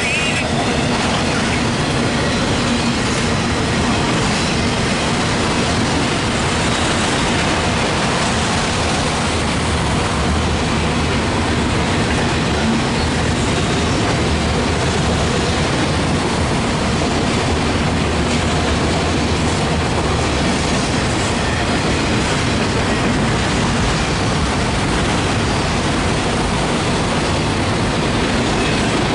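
Loaded autorack cars of a CSX freight train rolling steadily past, steel wheels running on the rails.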